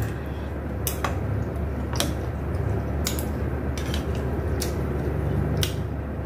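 Someone eating rice noodles with chopsticks from a ceramic bowl: scattered sharp clicks, roughly one a second, over a steady low hum.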